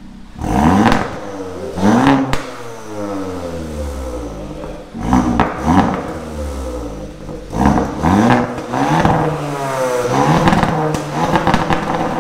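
Hyundai i20 N's turbocharged four-cylinder engine, breathing through a Milltek downpipe and cat-back exhaust in N mode, revved hard again and again: the revs climb sharply and fall away in quick repeated blips, with sharp cracks as they drop.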